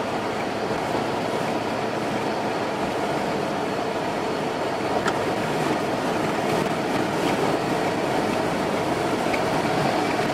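Steady road noise heard from inside a moving car: tyres on the pavement and the engine, an even hum with no changes.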